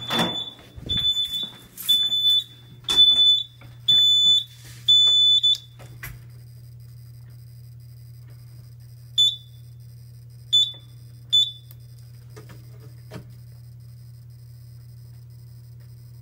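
Fire alarm sounder beeping a high tone about once a second, signalling a fire alarm from the elevator lobby smoke detector. It stops with a knock about six seconds in. Three short beeps of the same pitch follow from the fire alarm control panel, over a steady electrical hum.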